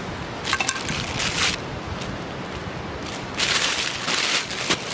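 Food being put together in a hot sandwich maker by hand. There are a few light clicks and two bursts of rustling, one about half a second in and one about three seconds in, as a slice of bread is laid on top. Under it all runs a steady rushing outdoor background.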